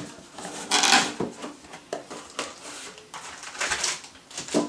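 Cardboard box being opened by hand: its flaps pulled apart and the box handled, giving a few short scraping, rustling bursts, the loudest about a second in and again near the end.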